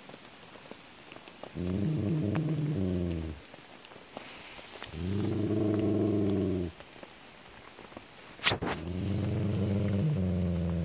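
Dog growling: three low, steady rumbles of about two seconds each, a few seconds apart, the last still going at the end. A sharp click comes just before the third growl.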